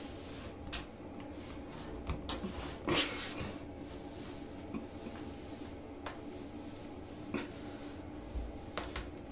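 A woven rag rug being pulled by a cat's paws across a tile floor and under a door: scattered soft scrapes, rustles and knocks, the loudest about three seconds in, over a faint steady hum.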